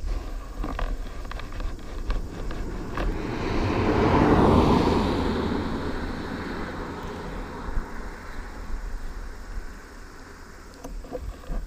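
A car driving past close by, its engine and tyre noise swelling to a peak about four seconds in and fading over the next few seconds, over a low steady rumble. A few light knocks near the start and end.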